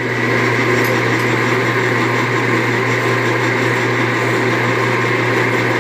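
Drill press running steadily with its bit boring into the metal shift-selector housing.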